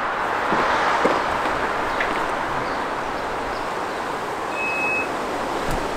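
Steady outdoor wind noise, with a few light knocks as a backpack is put into an SUV's boot. A single short high beep sounds about five seconds in.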